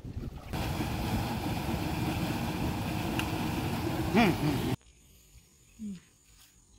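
Water gushing from an outlet into a concrete irrigation channel, a steady rushing that stops abruptly about three-quarters of the way through. Shortly before it stops, a short call rises and falls in pitch over the rush.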